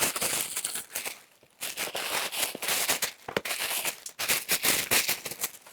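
Takeout food packaging crinkling and rustling with many small clicks and crackles as the meal is handled and unpacked, pausing briefly about a second and a half in.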